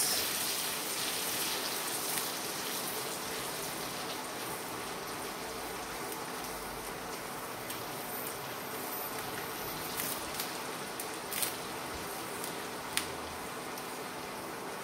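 Green chillies, curry leaves and spice powders sizzling in hot ghee in a steel kadai: a steady frying hiss, with a few sharp clicks near the end.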